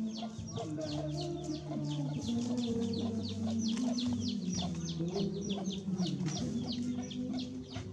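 Chicks peeping: a steady stream of short, high, falling peeps, several a second, over a low steady drone that steps in pitch.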